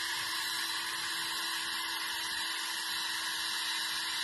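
Cordless drill running steadily, spinning a 20-gauge wire bore brush from a gun cleaning kit on an extension inside a turtle shell, scrubbing out leftover tissue and dirt. It makes a steady motor whine with a hiss of the brush scrubbing.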